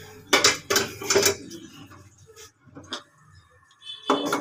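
Metal kitchen utensils clattering against a steel frying pan: a quick run of about four knocks in the first second and a half, then a couple of fainter clinks.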